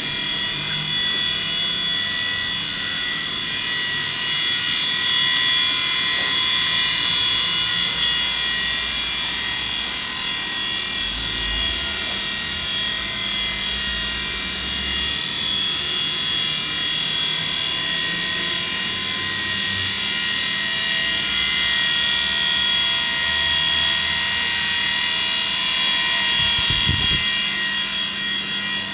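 WLtoys V911 4-channel micro RC helicopter in flight, its small electric motors and spinning rotor blades making a steady high-pitched whine. There is a brief low thump near the end.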